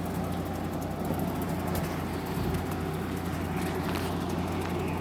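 General Electric 5,050 BTU window air conditioner running in fan-only mode on low fan, compressor off: a steady whir with a constant low hum.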